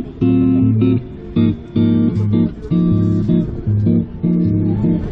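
Background music: guitar chords strummed in a steady rhythm, about two a second.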